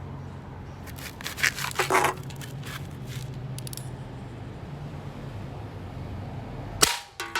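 Toy cap gun being handled: scraping and clicking about a second in, then one sharp crack near the end followed by a brief metallic ring, over a steady low hum.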